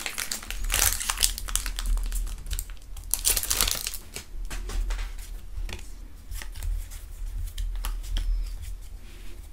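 Foil Pokémon booster pack wrapper crinkling and tearing open, dense and loudest through the first four seconds. After that, quieter rustling and clicks as the cards are drawn out and handled.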